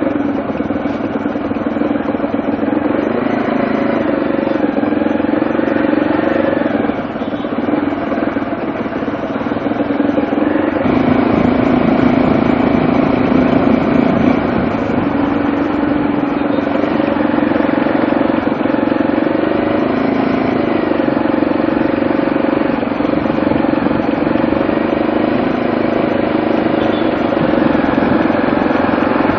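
A motorcycle engine running while the bike is ridden through traffic, its pitch rising and falling with the throttle.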